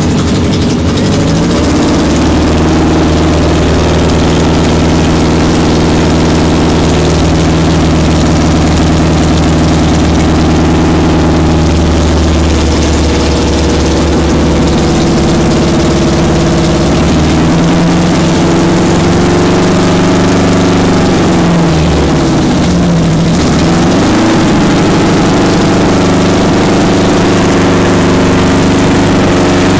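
Honda CB350 Four racer's air-cooled inline-four engine running loud and steady at idle. About twenty seconds in, the revs sag and pick back up a couple of times before settling again.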